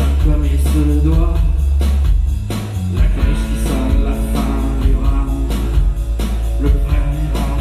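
Live rock music led by an electric guitar, over a heavy low end.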